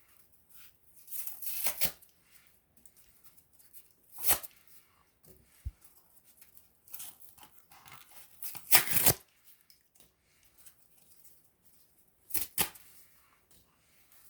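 Small wood fire crackling: scattered sharp pops and snaps of burning wood between quiet stretches, the loudest cluster about nine seconds in.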